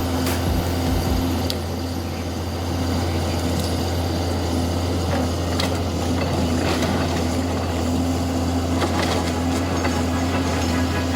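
Snowplow truck running steadily, a constant low engine drone and hum with a noisy rush as the blade pushes through the snow.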